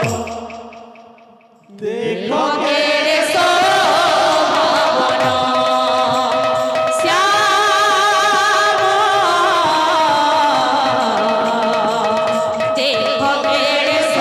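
Live kirtan devotional music: a woman sings with a wavering, ornamented voice through a microphone over barrel-drum (khol) playing and a steady held note. The music drops away at the start and comes back in under two seconds in.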